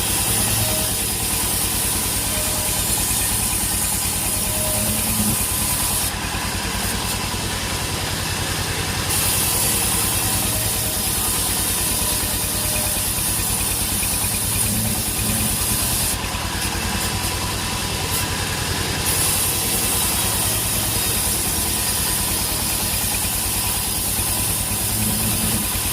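Sawmill machinery running: a steady engine drone, with a high hiss over it that cuts out twice for a few seconds, about ten seconds apart.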